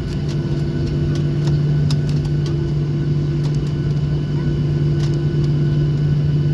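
Cabin noise of a Boeing 737-800 taxiing, its CFM56-7B engines at idle: a steady low hum over a rumble, with a fainter higher hum coming and going and light rattles and clicks from the cabin.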